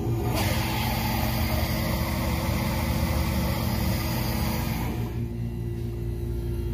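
Hydraulic elevator pump motor humming steadily as the valve is shut for a pressure test. Oil is forced through the relief valve with a loud hiss from just after the start until about five seconds in, when the hiss stops and the motor hum carries on.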